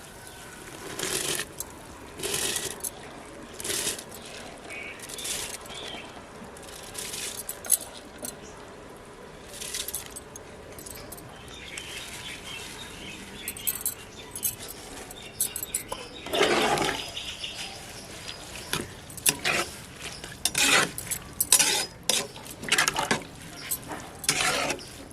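Rice being stirred into water in a pressure cooker with a metal spoon: scrapes and clinks against the pot every second or so, a longer clatter about two-thirds of the way in, and quicker clinks near the end.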